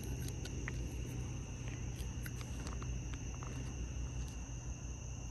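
Night insects trilling in a steady, unbroken high-pitched chorus, with a few faint small clicks over it.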